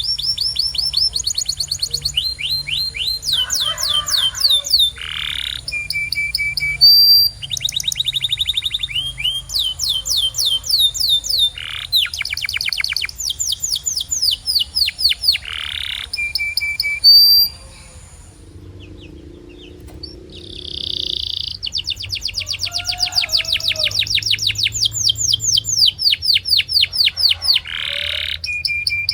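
Domestic canary singing a long song made of rapid trills, each phrase a quick run of the same short note repeated many times, the phrases changing in pitch and speed. About 18 seconds in the song breaks off for a couple of seconds before the trills resume.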